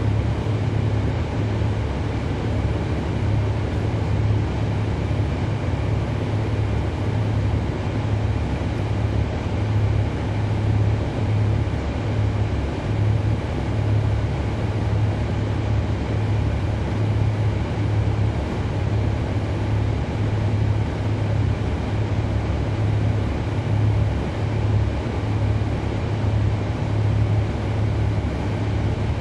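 Cummins ISL9 diesel engine of a NABI 40-foot transit bus running steadily under way: a deep, even, pulsing drone with road noise and a faint steady high whine above it.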